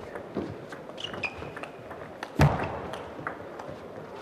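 Table tennis rally: the celluloid ball clicking sharply off paddles and table at irregular intervals, with one much louder heavy thump about two and a half seconds in.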